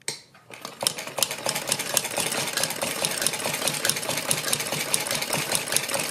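Sewing machine running a line of stitching along a fabric edge: it starts up and picks up speed over about the first second, then runs steadily with a rapid, even clicking of the needle.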